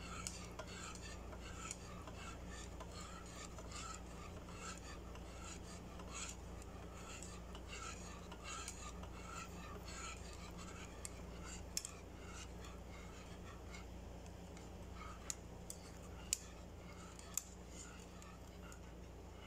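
Wire whisk scraping around a pan of thickening cornstarch pudding, a faint rhythmic rasp. A few sharp clicks come in the later part.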